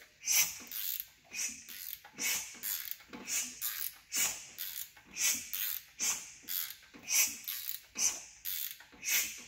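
VW 1.9 TDI PD diesel engine being turned over by hand at the crankshaft: a rhythmic hiss of air, about two puffs a second, as each cylinder's compression escapes.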